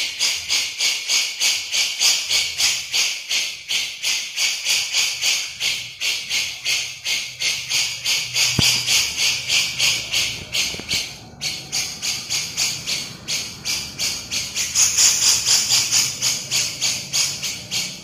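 Grey-cheeked bulbul (cucak jenggot) giving its rapid 'besetan' chatter: harsh, scratchy notes about four a second, repeated without a break, growing a little louder and higher about three seconds from the end.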